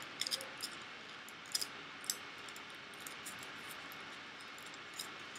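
Crumpled aluminium foil being handled and pulled off a fingertip: a few faint, scattered crinkles and sharp little ticks over a low hiss.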